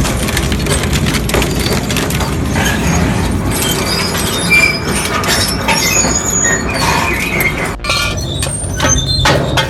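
Heavy machinery crushing scrap, with a steady low engine rumble under repeated cracking, breaking glass and clinking metal. Short high-pitched metal squeals come in from about four seconds in.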